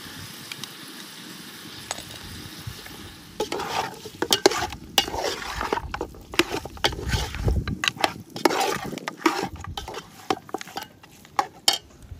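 A metal slotted spoon stirring meat and tomato paste frying in a large metal pot, scraping and clinking against the pot in quick irregular strokes that start about three seconds in, over a faint sizzle.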